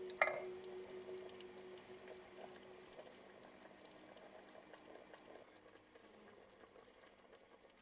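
Beef, carrots and onions simmering faintly in a pot, with small scattered crackles. A single sharp knock about a quarter second in, the wooden spoon striking the pot.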